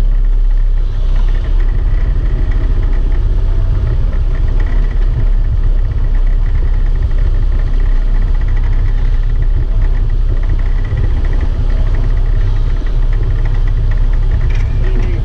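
A sport-fishing boat's inboard engines running with a steady low rumble.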